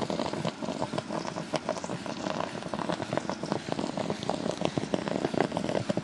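Distilled water boiling hard inside the EKitty boiler, driven at about 780 to 800 watts: a dense, steady crackle of many small pops as steam pours out.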